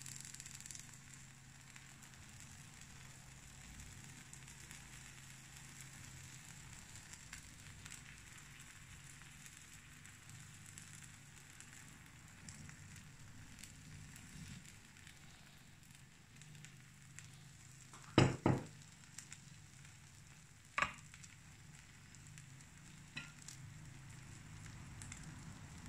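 Takoyaki batter sizzling faintly on the hot wells of an electric takoyaki pan as it is poured in, over a low steady hum. Two sharp knocks come close together about two-thirds of the way through, with a third a few seconds later.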